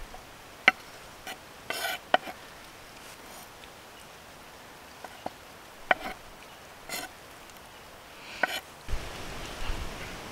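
A kitchen knife scraping diced vegetables across a wooden cutting board into a wooden bowl: a few short, rough scraping strokes and several sharp clicks of blade and food on wood. Near the end these give way to a steady airy hiss with a couple of low thuds.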